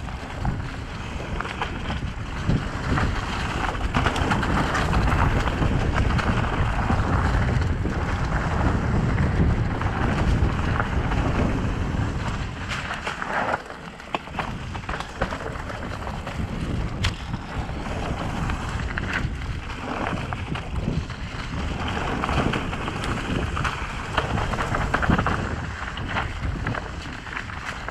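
Mountain bike riding downhill on leaf-covered dirt singletrack: wind buffeting the microphone, tyres rolling over dirt and dry leaves, and the bike rattling over bumps. It eases off briefly about halfway through.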